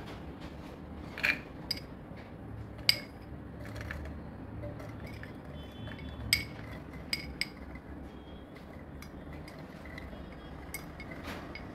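A metal spoon clinking and scraping against a glass bowl and a plastic blender jar as pomegranate arils are scooped in. The clinks are light, scattered and irregular, over a low steady background hum.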